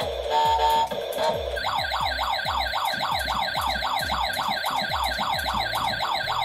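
Toy fire truck's electronic siren sound effect: after a few short horn-like tones, a fast yelp siren starts about a second and a half in, rising quickly about three times a second. Music with a low beat plays underneath.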